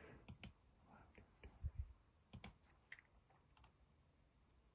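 Faint, scattered clicks of a computer mouse and keyboard, a dozen or so irregular taps, some in quick pairs.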